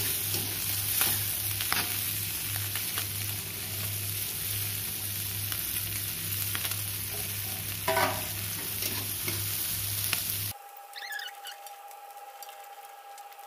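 Stir-frying in an aluminium wok: oil sizzling under chilies, tomato and fish while a metal spatula scrapes and knocks against the pan, with one louder knock about eight seconds in. The sizzle cuts off abruptly about ten seconds in, leaving a quieter background with a faint steady tone.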